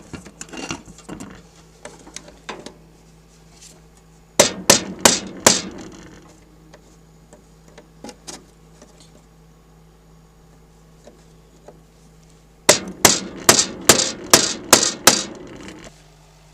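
Hammer blows on metal while knocking a milk cooler's condensing-unit fan loose. There are four quick blows about four seconds in, then a run of about nine rapid, evenly spaced blows near the end, with a few lighter knocks before them. A steady low hum runs underneath.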